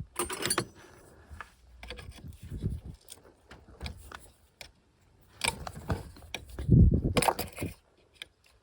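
Metal tools and parts being handled during a car's fuel filter change: irregular clinks, rattles and knocks, loudest in a cluster with a low thump about seven seconds in.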